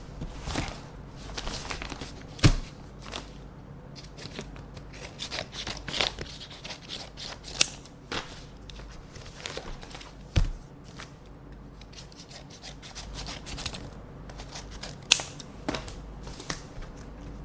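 Scissors snipping open paper envelopes, with quick, irregular cuts and paper rustling, and a few louder knocks, the strongest about two and a half seconds and ten seconds in.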